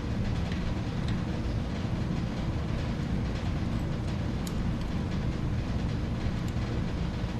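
Steady low mechanical rumble, with a few faint light clicks.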